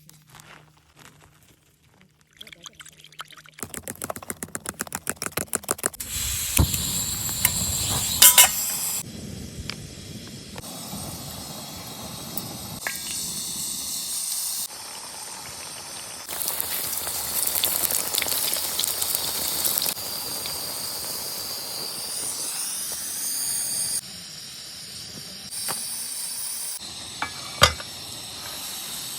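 Cooking sounds in a string of short cuts: hot fat sizzling and hissing as pancakes fry, with liquid being poured. There are brief runs of quick ticking and a few sharp clicks of utensils against the pan.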